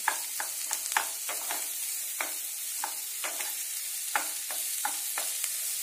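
Chopped onions frying in oil in a nonstick wok, sizzling steadily, while a spatula stirs them, scraping and knocking against the pan in irregular strokes two or three times a second. The onions are at the stage of being fried until lightly browned.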